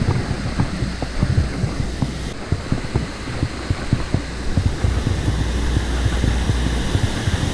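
Wind buffeting the camera's microphone: a steady low rumble broken by irregular dull thumps.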